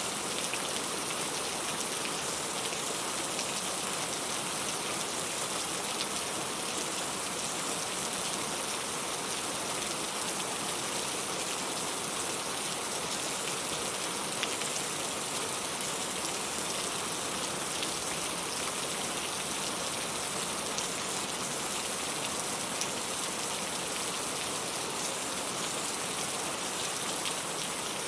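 Steady rain falling, an even hiss with many small drop ticks on a hard surface.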